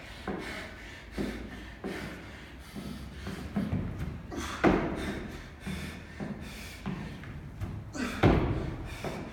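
Thuds and knocks from a steel pull-up rig and a wooden plyo box as an athlete does pull-ups, with two louder thumps, one about halfway through and one near the end, and smaller knocks between.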